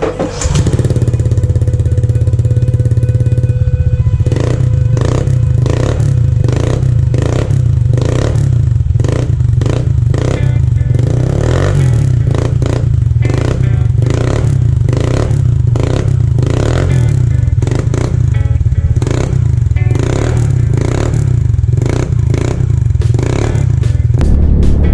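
Honda Click scooter's single-cylinder engine running through an aftermarket JVT Pipe V3 exhaust set to its high (loudest) setting, giving a steady deep, bassy drone. Background music with a steady beat plays alongside.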